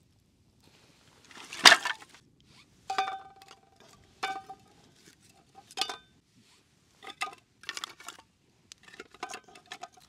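Metal objects clinking and knocking together, about eight times, several leaving a short ringing tone. The loudest is a sharp knock nearly two seconds in.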